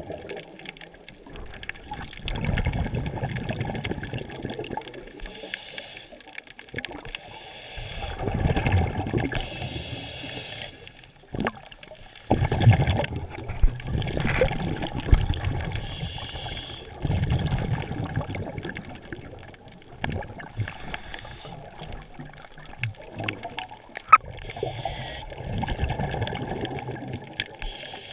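Water sloshing and gurgling around an underwater camera, swelling and fading in surges every few seconds, with a few sharp clicks.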